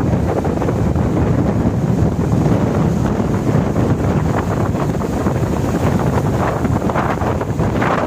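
Wind buffeting the microphone over rough surf breaking against shoreline rock boulders, with a wave crashing on the rocks near the end.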